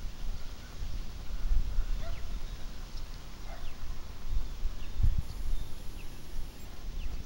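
Gusty wind buffeting the microphone as an uneven rumble, with short bird chirps scattered through.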